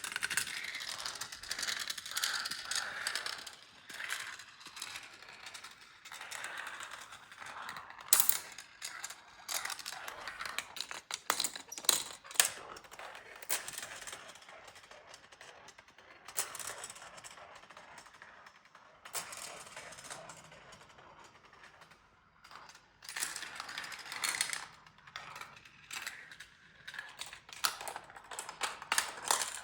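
Marbles rolling and rattling along a Gravitrax plastic marble-run track, with a steady rolling rasp that swells and fades and many sharp clicks and clacks as they drop through the pieces and strike each other.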